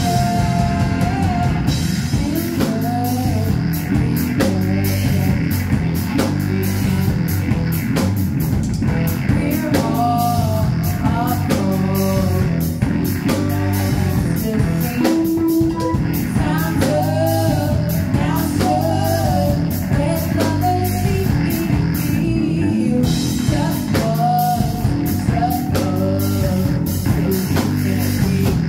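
Live rock band playing a song: electric guitar, bass guitar, drum kit and saxophone, with a singing voice over them.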